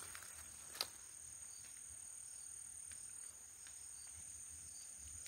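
Insects trilling steadily in two high-pitched bands. A few faint footsteps crunch on dry leaf litter, with one sharp snap about a second in.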